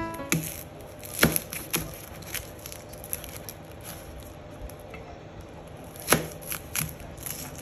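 Kitchen knife cutting through a red onion and knocking on a plastic cutting board. There is a quick cluster of sharp knocks in the first two seconds, then a few faint taps, and a second run of knocks about six seconds in.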